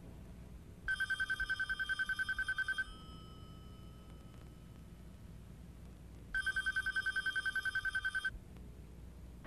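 Telephone ringing twice, each ring a trilling warble of rapid pulses lasting about two seconds, with a pause of several seconds between them.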